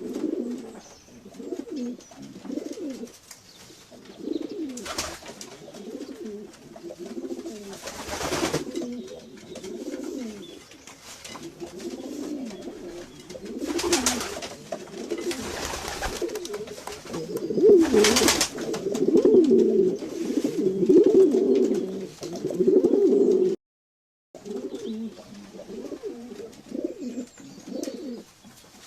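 A flock of domestic pigeons cooing, many low, overlapping coos at once, with several short noisy bursts among them. The sound cuts out completely for under a second about three-quarters of the way through.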